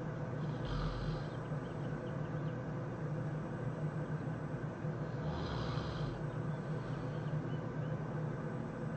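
A sleeping man snoring: two snores about four and a half seconds apart, over a steady low hum.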